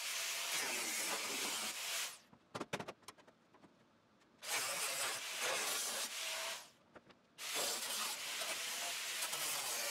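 A cut-off wheel cutting through the rusty sheet-steel floor pan of an old Jeep body, a loud hissing scream of metal being cut in three long runs that stop abruptly. In the first gap, about two and a half seconds in, there are a few sharp knocks.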